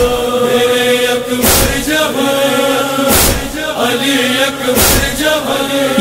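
Noha chorus holding a drawn-out chant between sung verses, with a heavy beat about every 1.7 seconds.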